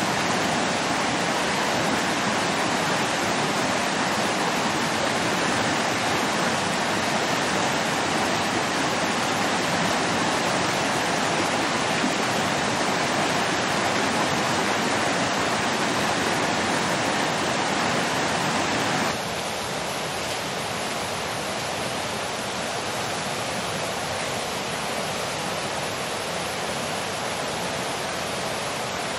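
Shallow stream rushing over rocks and stones, a steady full rush of water. About two-thirds of the way through it cuts suddenly to a quieter, steady, lighter rushing.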